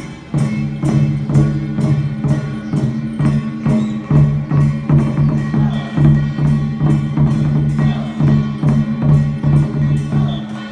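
Percussion-led music: a steady run of sharp wood-block-like strikes, about three a second, over held low tones.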